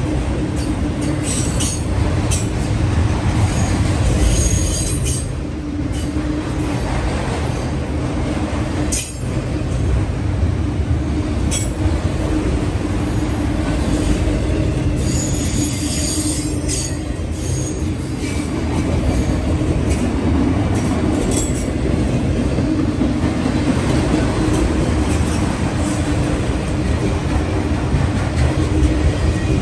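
Freight train of auto-rack cars rolling past close by: a steady rumble of steel wheels on rail, broken by several brief high-pitched wheel squeals.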